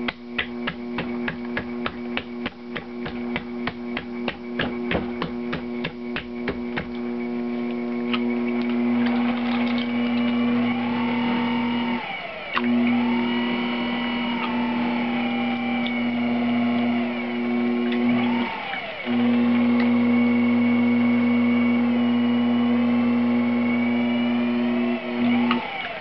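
Electric potter's wheel motor running with a steady hum, its pitch dipping and recovering several times and cutting out briefly about twelve and nineteen seconds in. For the first seven seconds a rapid, even knocking, about four a second, sounds with the wheel turning, from the stiff, uncentered lump of brick clay spinning on it.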